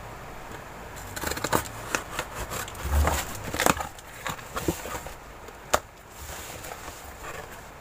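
A cardboard shipping box being cut open with a blade: a run of scrapes and sharp clicks as the tape is slit and the cardboard is handled, with a dull knock of the box about three seconds in.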